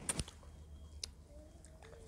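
Close-miked eating sounds of chicken curry being chewed: a quick cluster of wet, sharp mouth clicks at the start, then quieter chewing with a single click about a second in.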